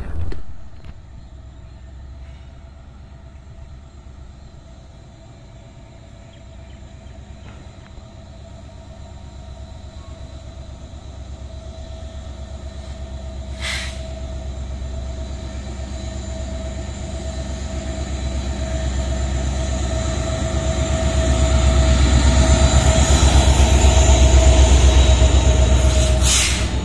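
ALCO diesel locomotive approaching at the head of a train, its engine drone and a steady whine growing louder until it passes close near the end.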